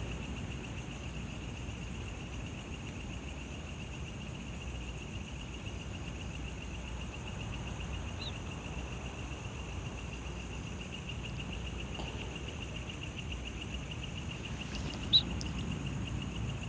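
A chorus of night insects, a steady high pulsing trill with no pause, over a low background hiss. One short sharp click sounds about fifteen seconds in.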